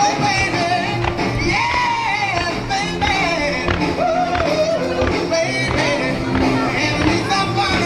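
Music with a singing voice: a wavering sung melody over steady backing instruments.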